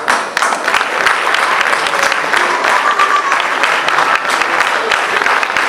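Audience applauding: a dense, steady patter of many hands clapping in a large hall.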